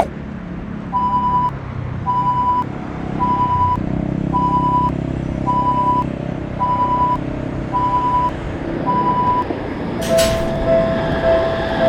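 Electronic warning beeper sounding eight even beeps, about one a second, over a low rumble that grows louder partway through. About ten seconds in, a sharp click, and a lower, steady pulsing tone takes over.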